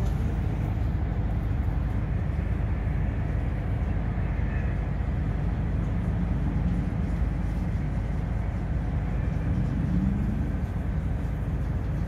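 Ship's engine rumbling steadily, a low, unbroken drone.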